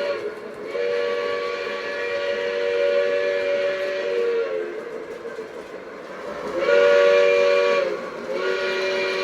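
A multi-chime train whistle sounds a chord in long blasts: one held for about four seconds, then two more shorter blasts near the end, the first of these the loudest.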